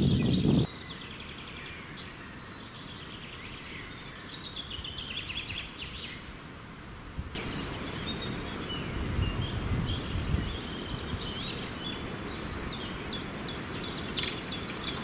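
Small birds singing and chirping over a steady outdoor background noise. A brief low rumble comes at the very start, and the background gets louder suddenly about seven seconds in.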